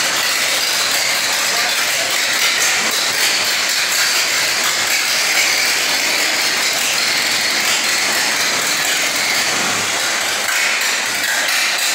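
1932 Ford AAB truck's four-cylinder engine running steadily on its first start, with a busy mechanical clatter.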